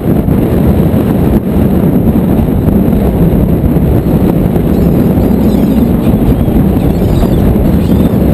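Steady low rumble of wind buffeting the microphone on a fishing boat's deck, mixed with the noise of the boat and the sea.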